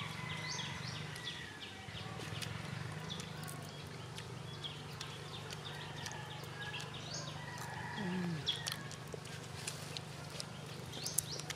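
Small scattered clicks and crunches of cooked cashew nuts being shelled and chewed, with short high bird chirps every second or two.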